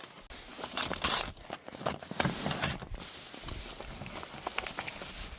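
Hands rummaging through a tool bag: metal tools such as wrenches clinking and rattling against each other, with a few sharper clatters about a second in and again near the three-second mark.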